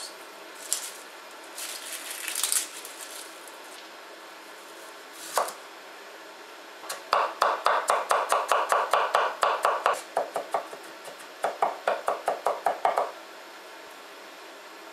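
Chinese cleaver chopping fresh ginger on a wooden chopping board: two runs of quick, even strokes, about five a second, with a short break between. Before them, a few light knocks and rustles and one single knock.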